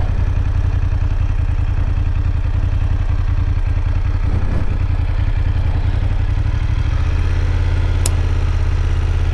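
BMW F850 GS motorcycle's parallel-twin engine idling steadily at a standstill, its note shifting slightly about seven seconds in. A single sharp click sounds near the end.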